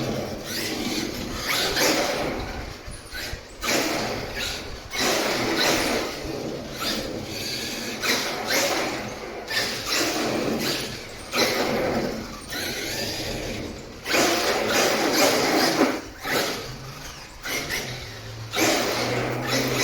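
Traxxas X-Maxx electric RC truck's brushless motor and drivetrain whirring in a run of irregular throttle bursts, each about half a second to two seconds long. This is a test run after new IC5 connectors were soldered on.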